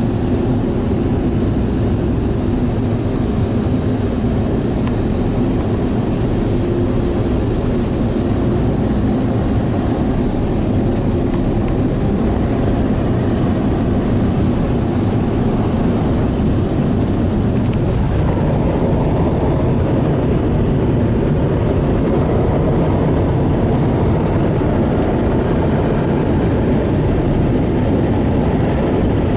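Ryko Softgloss Maxx car wash's onboard dryer blowers running as the gantry makes a drying pass, a loud steady rush of air heard from inside the vehicle's cab. The sound grows a little brighter about two-thirds of the way through.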